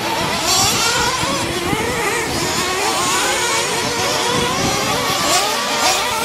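Several 1/8-scale off-road RC racing trucks (truggies) running together, their motors revving up and down as they race.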